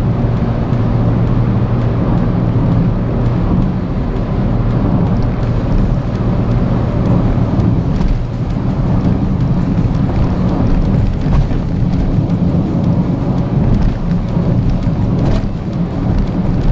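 In-cabin noise of a Perodua Axia driven at about 130–140 km/h: the steady drone of its 1.0-litre three-cylinder engine under heavy road and tyre noise. A few sharp knocks come from the car hitting bumps on a badly broken road surface.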